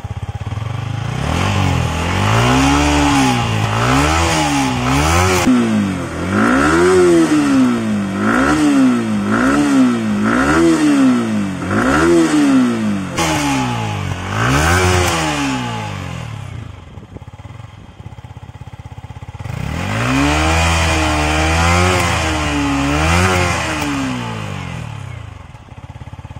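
Yamaha R15 V4's 155 cc single-cylinder engine blipped repeatedly through its exhaust, pitch rising and falling about once a second, then settling to idle for a few seconds before three more blips.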